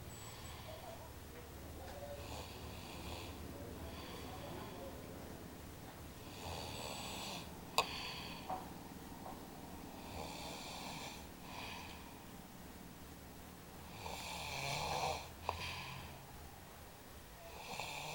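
A man snoring in his sleep: a rasping snore about every four seconds, louder near the end, with two sharp clicks in between.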